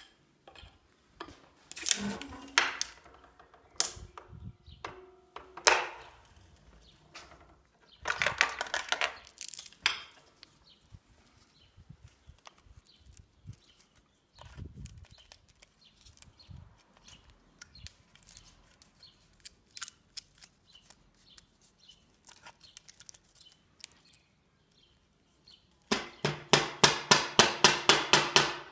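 Metal clanks, knocks and rattles from a homemade bottle-jack hard-drive press being worked and loaded with drives. Near the end comes a fast, even run of loud clacks, about five a second, for a few seconds.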